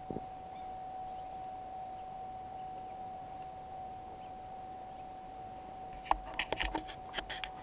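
A steady thin tone over low hiss, then, from about six seconds in, a quick run of crunching footsteps in packed snow.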